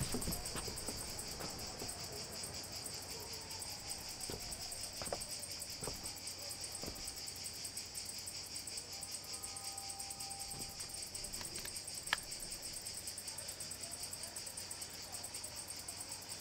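Insects chirring steadily, a high, finely pulsed buzz that carries on without a break. There are a few faint clicks and taps, and a sharper click about twelve seconds in.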